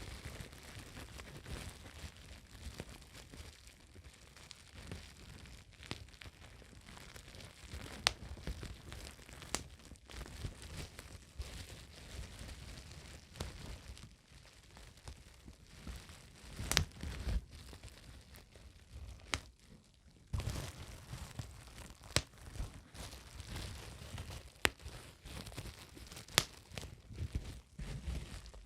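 Plastic bubble wrap crinkling close to the microphone, with scattered sharp pops as bubbles burst.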